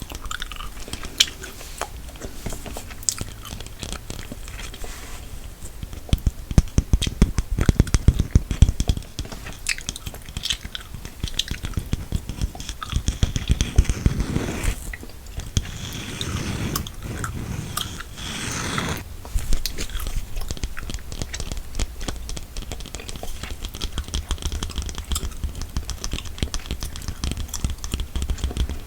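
Gum being chewed close to a sensitive microphone: a steady run of small mouth clicks and pops, with two louder, denser stretches in the middle.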